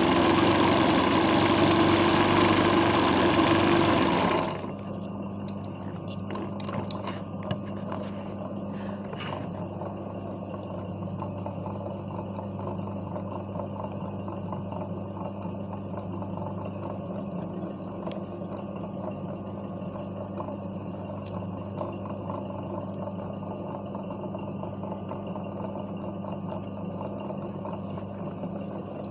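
Sewing machine running fast, free-hand embroidery stitching, for about the first four seconds, then the stitching stops suddenly. A steady low motor hum carries on for the rest, with a few light clicks just after the stop.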